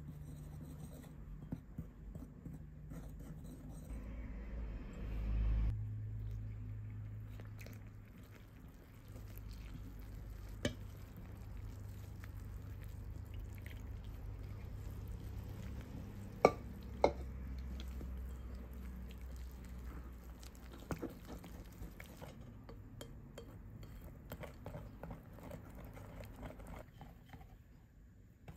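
Small wire whisk stirring in a glass bowl, mixing flour and water into a batter, with soft scraping and dripping and a few sharp clinks of the whisk against the glass, two of them close together past the middle. A low steady hum runs underneath.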